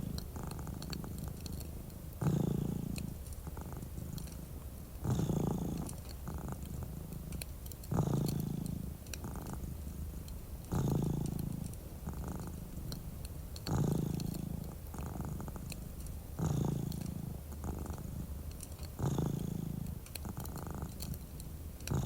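Domestic cat purring steadily, swelling louder at the start of each breath about every three seconds, with faint fireplace crackles over it.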